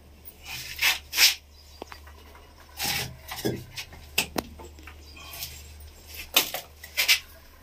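Bricks and debris shifted by hand on a concrete floor: irregular scraping and rubbing, in about eight short bursts.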